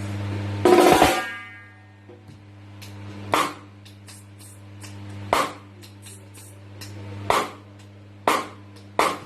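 Snare drum tuned for reggae being struck: six sharp cracks, the first and loudest ringing on briefly, the rest roughly two seconds apart with two quicker hits near the end. Faint light taps sit between them over a steady low hum.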